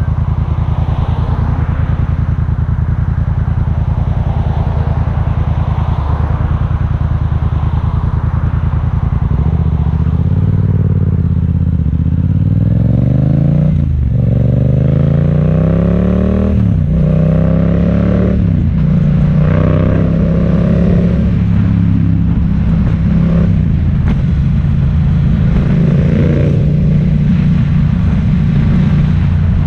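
Vehicle engine during a ride: it holds a steady note, then about a third of the way in it accelerates through the gears. The pitch rises in three pulls, each cut short by a shift, before settling back to a steady cruise.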